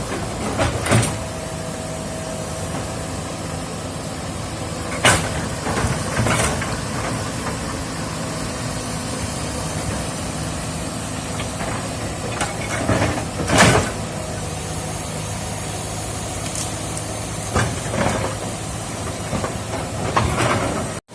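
Excavator's diesel engine running steadily under a hiss, with sharp knocks a few times: one about five seconds in, another about six seconds in, a louder one near the middle, and several close together near the end.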